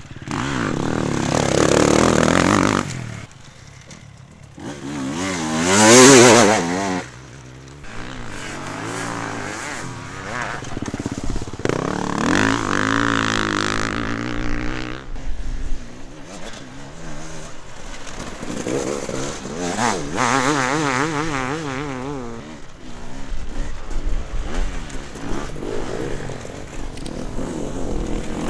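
Enduro motorcycles revving hard as they ride past one after another on a dirt track, the engine pitch rising and falling with the throttle. The loudest pass comes about six seconds in.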